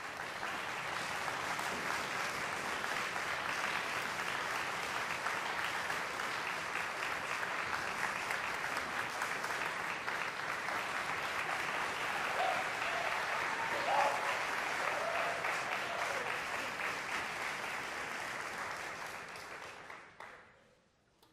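Concert audience applauding steadily, dense clapping that fades away near the end.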